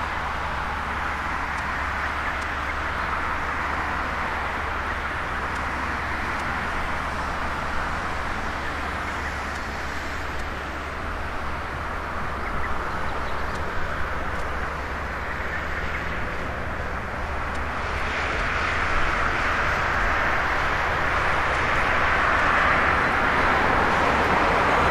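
Jet engines of an All Nippon Airways Boeing 767-300ER on final approach: a steady jet rumble and hiss that grows louder from about 18 seconds in as the plane closes in.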